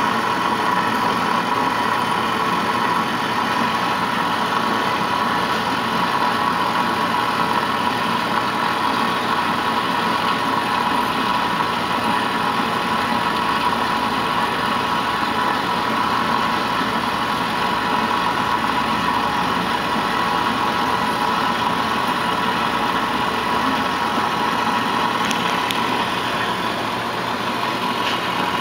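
Doall 16-inch vertical metal-cutting bandsaw running steadily, its blade partway through a cut in metal stock, with a steady whine over the sound of the cut.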